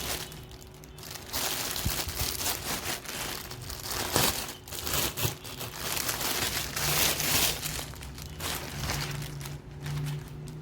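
Packaging crinkling and rustling in irregular bursts as a newly delivered storage bag is handled and unwrapped.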